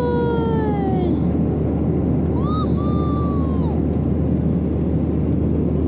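Steady airliner cabin noise in flight, a low engine drone under a rushing hiss. Over it a high, drawn-out voice-like call falls in pitch and ends about a second in, and a second, higher one rises and then falls from about two to four seconds in.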